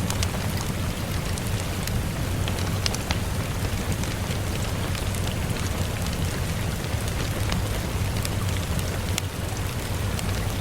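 Steady rain falling, a continuous hiss with a low rumble beneath, scattered with sharp crackles and pops from a wood fire burning in a stove.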